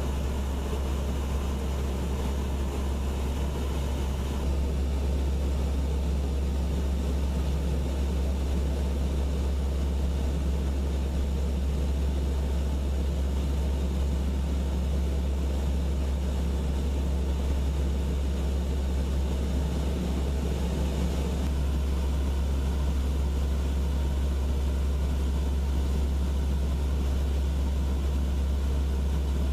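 AC-130 gunship's four turboprop engines and propellers droning steadily with a strong low hum as the aircraft starts its takeoff, growing slightly louder about four seconds in.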